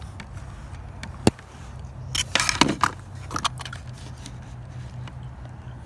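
Clicks and light scraping from objects being handled on a hard surface: one sharp click about a second in, then a quick cluster of clicks and scrapes over about a second. A steady low hum lies underneath.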